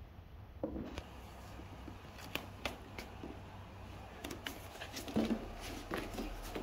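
A cat licking and lapping at a jelly snack in a ceramic bowl: scattered small wet clicks and smacks, a little louder near the end.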